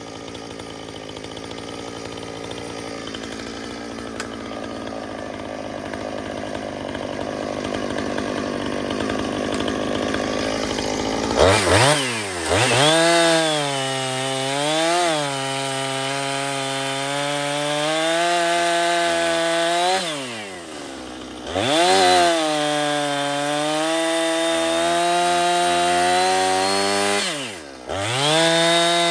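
Two-stroke chainsaw cutting through a hardwood log: a steady, rougher run that slowly grows louder, then from about a third of the way in a high engine note at full throttle whose pitch sags and recovers as the chain loads in the cut. It drops off briefly twice and comes straight back up.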